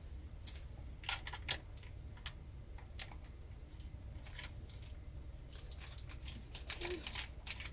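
Scattered light clicks and crinkles of a stick of butter being handled in its wrapper and cut into a small bowl, over a low steady hum.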